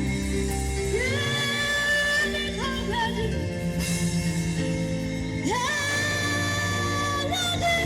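Gospel music with singing and saxophone over a band backing. The melody holds long notes that scoop up into pitch several times.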